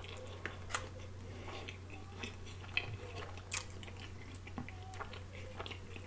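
Close-miked eating sounds: soft chewing and biting of pita bread and grilled chicken, with faint scattered mouth clicks and smacks over a steady low hum.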